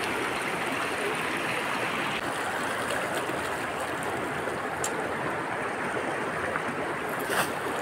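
Shallow rocky mountain river running over stones, a steady rushing of water. A brief tap near the end.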